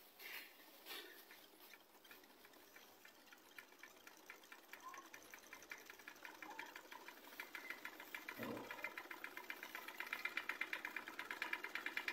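Small electric motor of a homemade toy tractor running with a fast, even rhythmic clatter, faint at first and growing steadily louder. A brief knock comes about two-thirds through.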